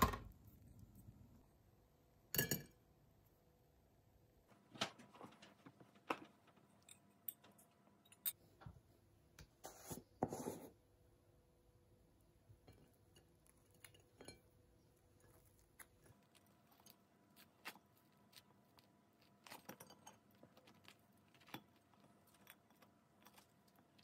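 Quiet kitchen handling sounds: scattered clinks and taps of a metal spoon against a glass peanut-butter jar and a ceramic plate, with a few louder knocks and clatters in the first half and softer taps later.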